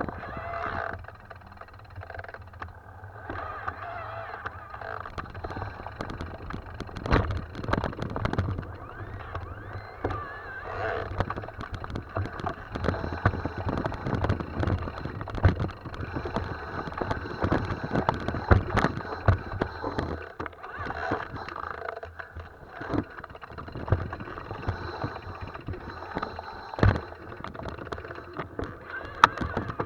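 Mountain bike riding over a rough trail: tyres rolling on dirt and stones, with the bike rattling and knocking irregularly over bumps.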